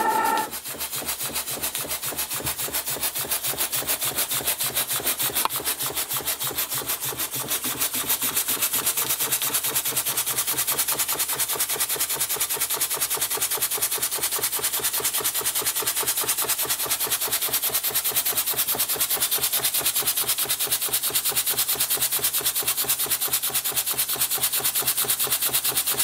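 Small homemade single-cylinder horizontal steam engine running on steam, its exhaust puffing in a rapid, even beat as the flywheel spins. The butane torch under the boiler hisses behind it. The beat gets louder about eight seconds in.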